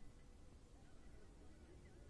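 Near silence, with only a faint low background rumble.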